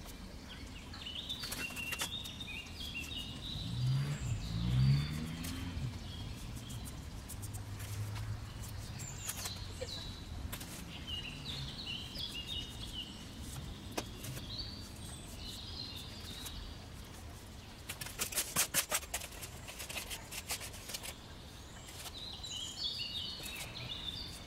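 Small birds singing in short repeated chirping phrases. About four to five seconds in there is a brief low sound, and a little past the middle a quick run of clicks.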